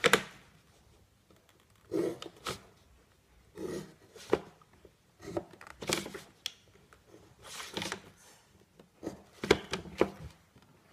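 Drawing instruments being handled on paper: plastic rulers and set squares shifted and tapped into place, and a compass with a pencil lead set down and worked. This comes as short scrapes and light knocks at uneven intervals, with near quiet in between.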